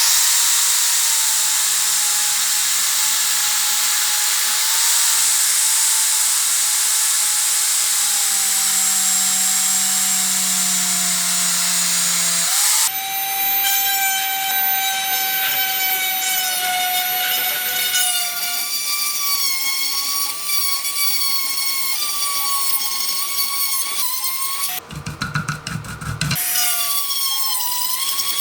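Electric power tool running against metal: a steady high whine over a loud abrasive hiss. The sound changes abruptly about 13 seconds in and again briefly around 25 seconds, as between separate takes.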